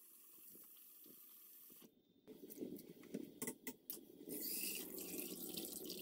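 Kitchen faucet running faintly onto corn kernels in a stainless pasta pot. After a brief drop-out about two seconds in, louder water splashing and draining, with a few metallic clicks, as the perforated strainer insert is lifted out to drain the rinsed kernels.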